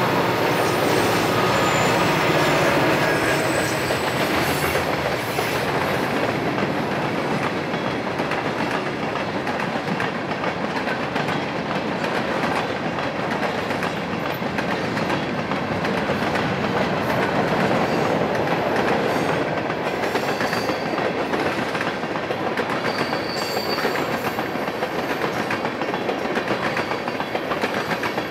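Diesel freight train passing close by: the trailing locomotive's engine is loudest in the first few seconds, then boxcars and tank cars roll past with a steady clickety-clack of wheels over the rail joints. A few faint high wheel squeals come after about twenty seconds.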